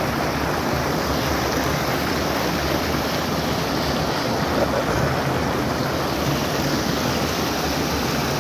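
Shallow creek rapids: fast water pouring over a rock ledge in a steady, unbroken rush of white water, close by.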